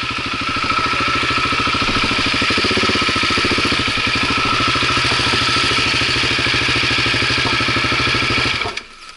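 Off-road motorcycle engine running steadily with an even, rapid beat, cutting off suddenly near the end.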